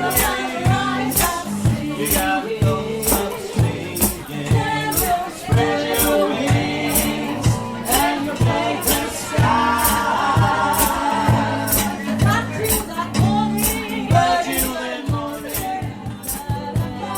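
Vocal trio singing a jazz-pop arrangement, with a tambourine-like hand percussion striking a steady beat over pitched accompaniment.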